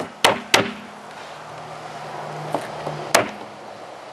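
Meat cleaver chopping through rhubarb stalks onto a cutting board: three quick chops right at the start, then a single chop about three seconds in.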